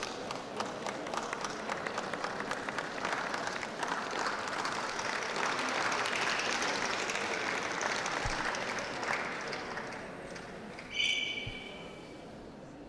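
Audience applause, many hands clapping, swelling and then dying away after about ten seconds. A brief high-pitched squeak sounds near the end.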